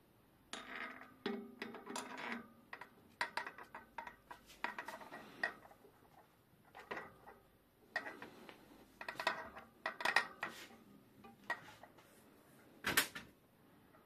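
Steel hub parts clinking and clattering in the hands as a bicycle front-hub axle with its cone and locknut is handled and slid back into the hub body, with a sharper metallic click near the end.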